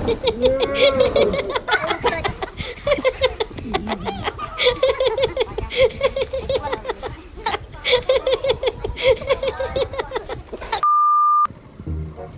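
A person laughing in long runs of quick, choppy bursts, stopping and starting again several times. Near the end one steady electronic beep lasts about half a second, then music begins.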